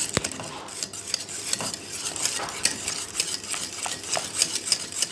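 Wire whisk stirring thick béchamel sauce in a stainless steel pot, its wires scraping and clicking against the metal in quick, irregular strokes.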